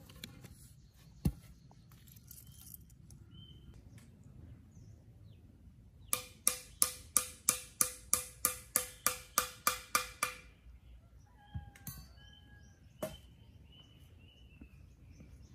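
A tool beating on bamboo poles: a quick run of about fifteen sharp blows, three or four a second, each with a short ring, starting about six seconds in and stopping about four seconds later. Single knocks come before and after, and birds chirp now and then.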